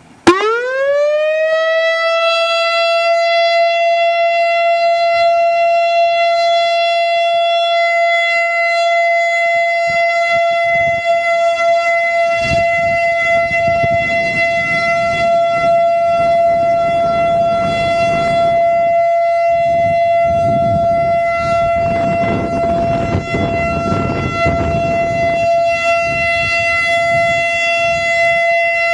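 Turkey Point warning siren winding up from silence about a second in, rising in pitch, then holding one loud, steady tone. A rushing noise swells and fades beneath it in the middle.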